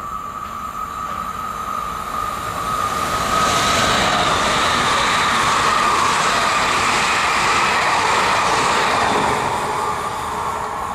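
Two coupled SNCF Z 27500 (AGC) electric multiple units approaching and passing close by at speed. The running noise swells, is loudest from about three to nine seconds in, then fades as the train moves off. A steady high whine is heard throughout.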